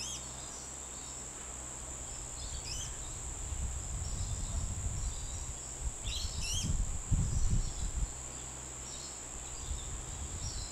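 Forest ambience: a steady high insect drone, with short bird chirps a few times. A low rumble swells in the middle and is loudest about seven seconds in.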